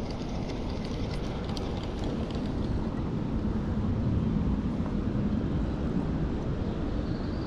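Steady low rumble of water pouring over a small waterfall, swelling slightly about halfway through.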